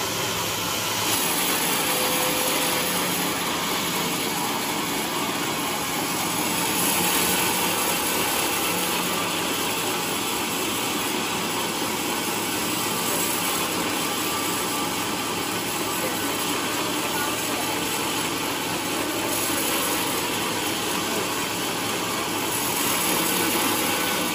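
Large band sawmill sawing lengthwise through a trembesi hardwood log: a steady, dense noise of the running machine and the blade in the cut.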